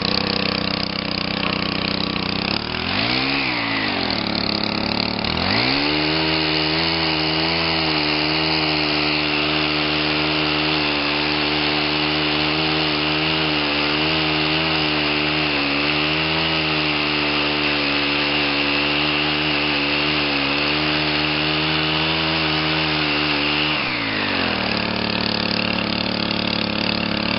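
Chainsaw idling, blipped once, then run at high revs for about eighteen seconds while cutting wood, its pitch wavering under the load, before dropping back to idle near the end.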